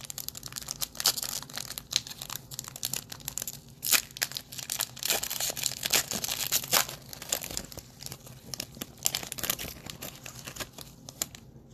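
A foil trading-card pack wrapper being torn open and crinkled by hand, with irregular crackling that is busiest in the middle.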